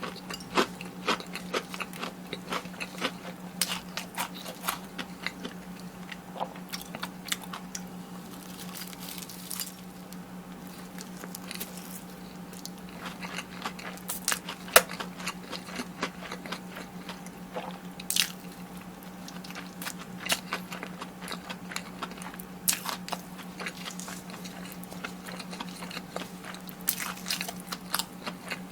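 Close-miked biting and chewing of crispy fried food, with repeated sharp crunches and a few louder ones past the middle. A steady low hum runs underneath.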